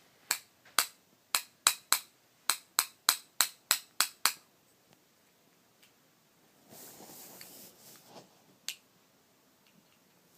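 About a dozen sharp clicks in quick succession, roughly three a second, stopping about four seconds in; a few seconds later comes a short rustle and one more click.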